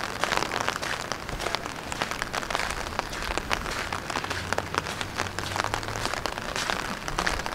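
Rain falling steadily, a dense irregular spatter of close drop hits.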